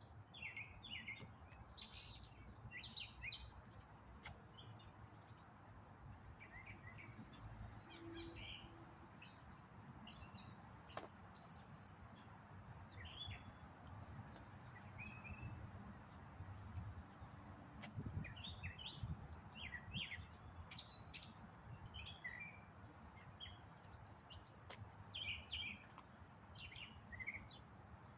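Small songbirds chirping and twittering, short calls repeating throughout, over a low rumble of wind on the microphone.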